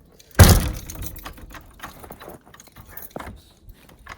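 A door slammed hard shut once, with a loud bang about half a second in, followed by small metallic clicks and rattles from its latch and lock. The latch is not catching.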